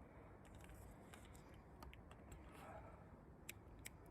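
Near silence, broken by a few faint, sharp clicks spread unevenly through it.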